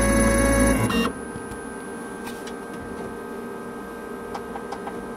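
CNC engraving machine engraving a copper penny: a loud steady hum with several steady tones cuts off suddenly about a second in, leaving a quieter steady whine with faint scattered ticks.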